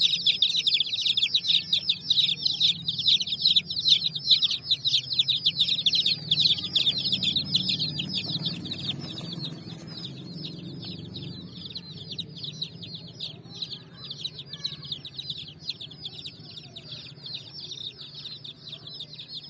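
Many baby chicks peeping at once, a continuous stream of rapid high chirps that grows quieter about halfway through.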